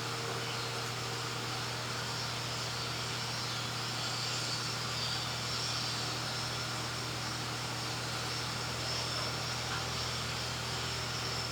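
Steady machine hum with a hiss, unchanging throughout.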